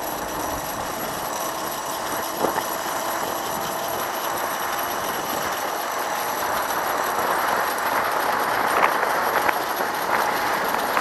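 Zip-line trolley's pulley wheels running along the steel cable with wind rushing past, a steady rumbling hiss that grows a little louder in the second half, with a few faint clicks.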